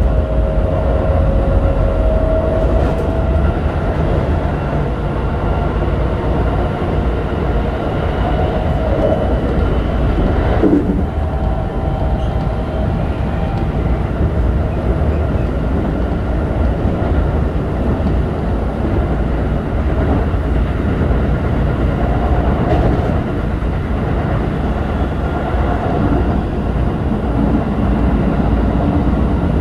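Keikyu 1000-series train with a Siemens GTO-VVVF inverter, heard from inside the car while running: a steady rumble of wheels on the rails with the inverter and traction-motor whine over it. The whine rises briefly at the start and slides down in pitch about ten seconds in.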